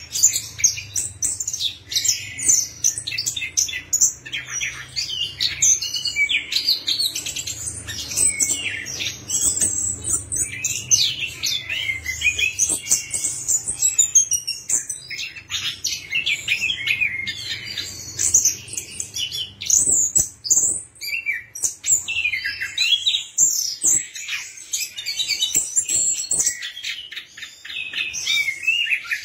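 Chestnut-capped thrush (anis kembang) singing a fast, dense, high-pitched song of quick varied phrases with almost no pauses.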